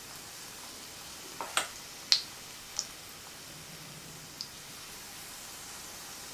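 Zucchini fritter batter frying in hot vegetable oil in a pan: a faint, steady sizzle with a few sharp pops and clicks in the first part, the loudest about two seconds in.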